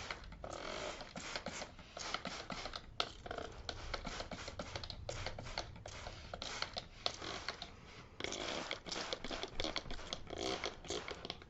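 Scrubbing strokes over a dirty car back seat cover: quick, irregular scratchy rubbing, pass after pass, as the cleaner is worked into the grime.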